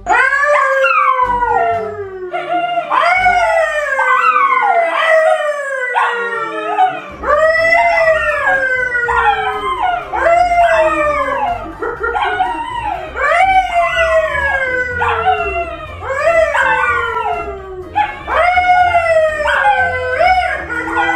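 A man and a pet dog howling together: a long run of overlapping howls, each starting high and sliding down, about one a second.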